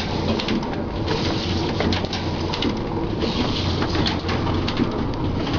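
Book stitching machine running: a steady low hum under a dense stream of quick, irregular mechanical clicks and ticks.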